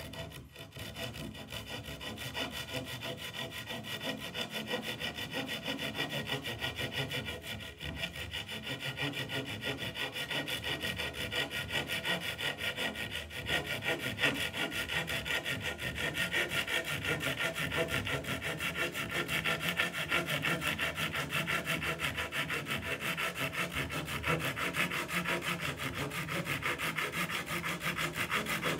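Tajima Japanese-style handsaw cutting across a thin plywood board, with steady, rapid back-and-forth rasping strokes and no pause.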